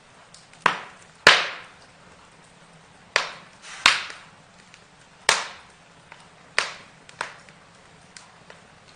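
Burning wood crackling, with about seven loud sharp pops at irregular intervals and fainter ticks between them over a low steady hiss.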